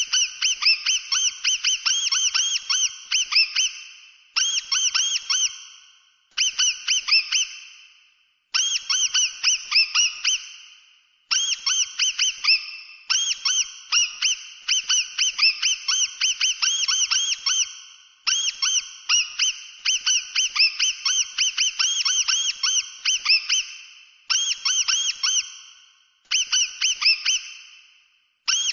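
Mouse squeaking: rapid runs of high, chirping squeaks in bursts of one to three seconds, broken by short pauses.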